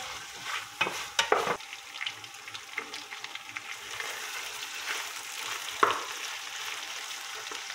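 Chicken pieces and diced calabresa sausage sizzling steadily as they fry and brown in oil in a large aluminium pot, a wooden spoon stirring and scraping through them, with a cluster of scrapes about a second in and another near six seconds.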